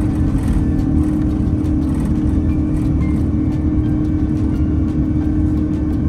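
Airbus A330-900's Rolls-Royce Trent 7000 engines at takeoff thrust, heard inside the cabin by the wing as the airliner lifts off and climbs: a loud, steady low rumble with a steady droning tone.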